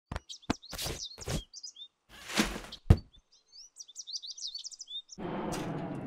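Birds chirping in short calls that slide up and down, mixed with several knocks and thuds, the loudest knock about three seconds in. A little past five seconds a steady, even noise sets in.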